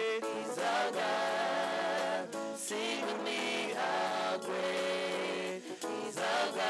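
A man sings a gospel hymn into a microphone, his notes wavering with vibrato, over a Yamaha electronic keyboard holding sustained chords.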